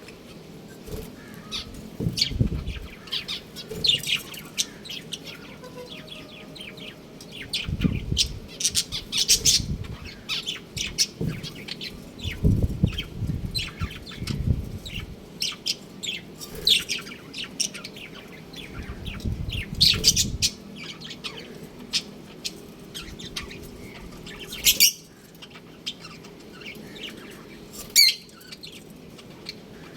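Pet budgerigars chirping and twittering in many quick, high calls, with a few sharper chirps near the end. Occasional low thuds are mixed in.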